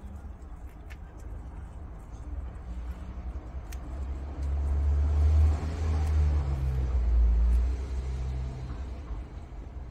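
Prairie dogs tearing and chewing blades of fresh grass, faint crisp clicks, under a louder low rumble that swells about four seconds in and eases off near nine seconds.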